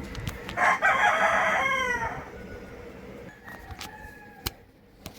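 A rooster crowing once, a pitched call of about a second and a half whose end falls away, followed a couple of seconds later by a fainter, shorter call. A sharp click sounds near the end.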